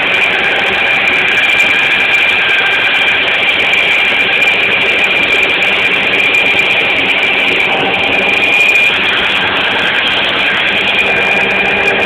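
Walker riding mower running steadily under load while mowing, engine and cutting deck making a constant noise with a steady high whine over it.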